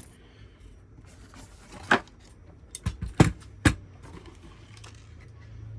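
Packaging and a cable being handled during an unboxing: a few sharp knocks and clicks, about two seconds in and again three times around three seconds in, over faint rustling, with a low steady hum coming in about halfway.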